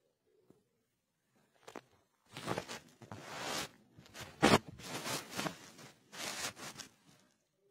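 Handling noise: a phone rubbing and scraping against clothing and bedding as it is moved about, in several rustling bursts with one sharper knock about halfway through.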